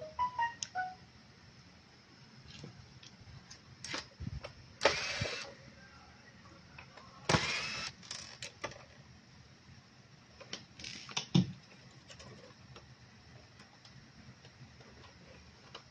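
Scattered clicks and knocks of plastic and metal parts being handled inside an opened LCD projector, with two longer scraping rustles about five and seven and a half seconds in.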